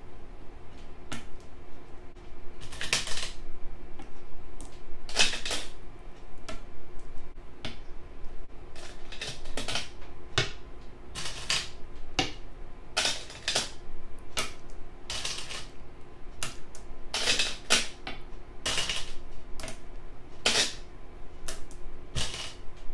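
Go stones placed one after another on a board as the game's moves are replayed: sharp, irregular clacks about once a second, some in quick pairs.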